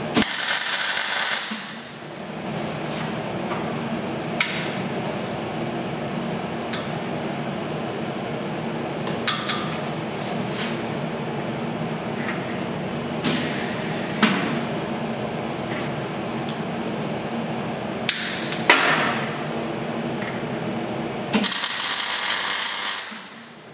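MIG welding on steel tube: the arc crackles and hisses for about a second and a half at the start and about two seconds near the end, with a few brief crackles between, over a steady hum.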